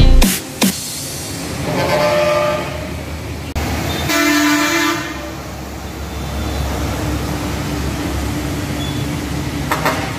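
Heavy trucks passing on a wet street, engines rumbling low and tyres hissing, with horns honking about two seconds in and again around four seconds in.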